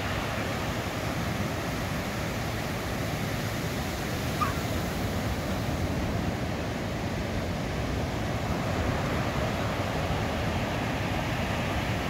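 Ocean surf breaking on a rocky shore: a steady rush of waves, with one short high chirp about four and a half seconds in.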